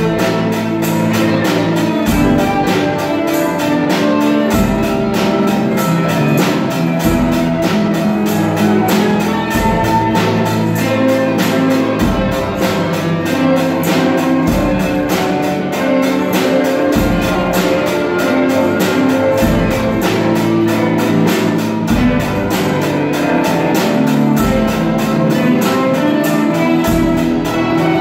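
Student string orchestra playing a piece, violins bowing together over a steady drum beat, with a deep bass note returning about every two and a half seconds.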